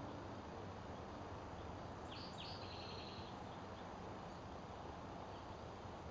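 Spotted towhee singing once about two seconds in: two short introductory notes, then a brief rapid trill, over a steady outdoor hiss.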